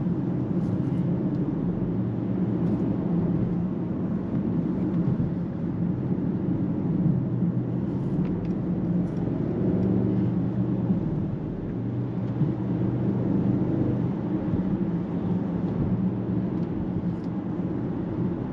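2024 Mercedes-AMG GLE 63 S's twin-turbo V8 running steadily while driving, a low hum over tyre and road noise, heard inside the cabin.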